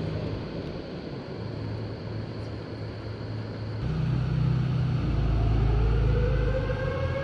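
Low rumble and hiss of outdoor air and stream noise. From about halfway in, a siren-like mechanical whine winds up in pitch, then holds steady.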